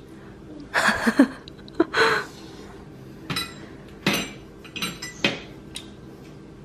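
Metal fork clinking and scraping against a ceramic bowl, a handful of short, irregular clinks and knocks.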